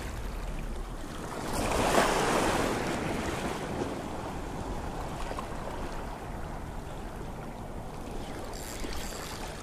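Small waves washing over a rock jetty, with one louder surge about two seconds in.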